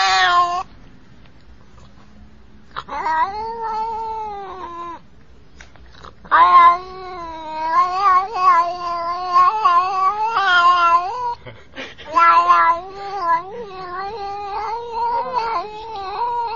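Domestic cat giving long, drawn-out meows whose pitch wavers up and down like singing. One call comes about three seconds in, then longer runs of calls from about six to eleven seconds and from twelve seconds on, with short pauses between.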